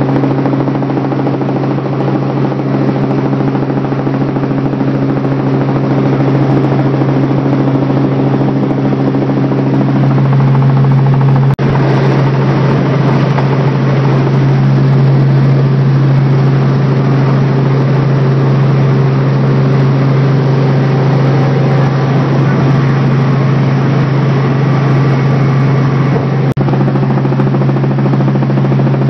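Helicopter in flight heard from on board: a loud, steady engine and rotor drone with a strong low hum, growing somewhat louder about ten seconds in.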